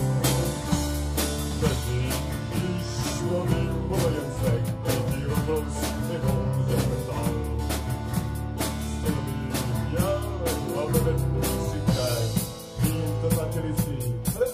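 Live band music: acoustic guitar strummed over a drum kit, with a voice singing a wavering melody line. The music drops briefly near the end, then carries on.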